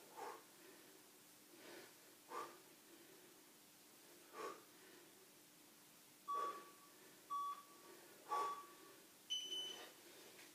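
A man breathing hard in soft puffs while holding a core exercise. From about six seconds in, a workout timer beeps three times about a second apart, then gives one longer, higher beep that marks the end of the work interval.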